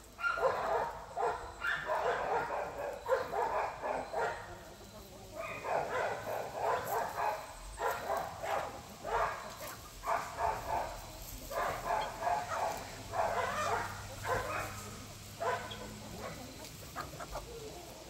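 Free-range chickens calling in repeated bursts about a second long, with dogs mixed in.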